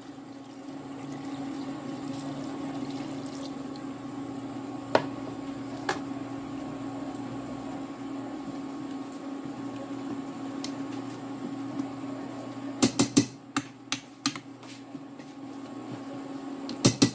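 Water poured from a pitcher into a steel pot of chicken and papaya, a steady pour lasting about twelve seconds, over a steady low hum. After that a metal ladle clinks against the pot several times.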